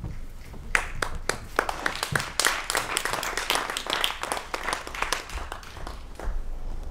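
Hand clapping: a dense, irregular patter of claps that starts about a second in and thins out near the end.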